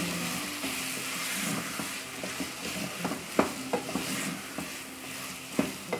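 Sliced maxixe (West Indian gherkins) sizzling in an aluminium pot while being stirred with a wooden spoon, with a steady frying hiss and several sharp knocks of the spoon against the pot, the loudest about three and a half seconds in.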